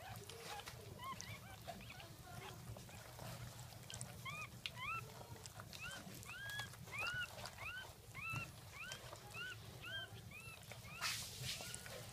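Newborn Jack Russell puppy squeaking: a run of short, high cries that rise and fall, about two a second, starting about four seconds in, with a brief rustle near the end.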